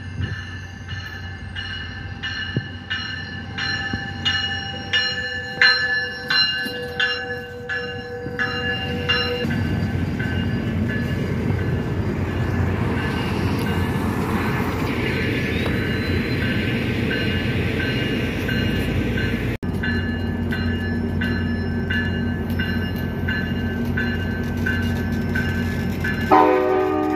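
Passenger train arriving at a station: a bell rings steadily, about twice a second, and a horn sounds for several seconds. The bilevel cars then roll past with a loud, even rumble. The bell ringing returns over a low steady hum.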